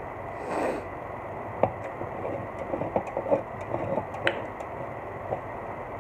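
A short breath, then a string of light clicks and taps as an aluminium soda can is turned by hand on the table. The sharpest clicks come about a second and a half in and again about four seconds in.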